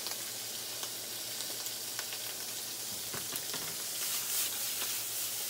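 Shrimp sizzling in hot oil in a frying pan, a steady hiss with a few light clicks. About four seconds in the sizzle swells briefly as the pan is lifted and tossed.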